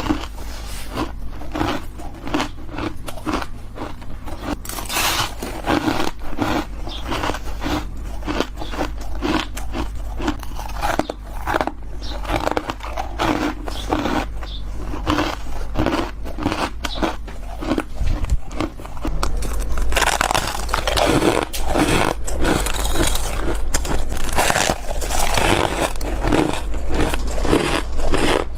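Freezer frost being bitten close to the microphone: a rapid, irregular run of squeaky, crunchy bites, growing denser and louder about two-thirds of the way through.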